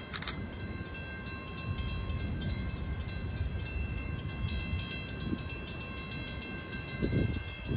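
Amtrak train approaching from a distance: a low rumble under a grade-crossing bell ringing rapidly and steadily.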